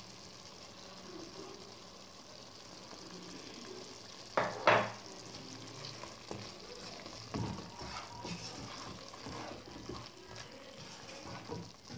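Thick mutton gravy, its water cooked off, sizzling in a non-stick pot as a wooden spatula stirs and scrapes through it. Two sharp knocks of the spatula against the pot a little over four seconds in are the loudest sounds.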